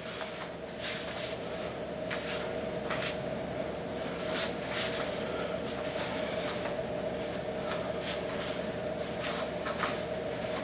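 Quick swishes of a taekwondo uniform and bare feet stepping and pivoting on foam mats, one brush after another through the moves of a form, over a steady hum.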